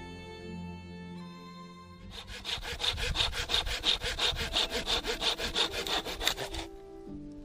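Hand saw cutting through wood in quick, even strokes, about five a second, starting about two seconds in and stopping about a second before the end.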